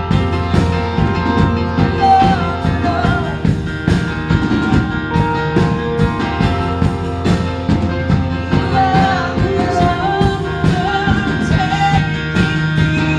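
Live praise and worship band playing an upbeat song with drums, bass and guitar, a singer's voice carrying the melody over a steady beat.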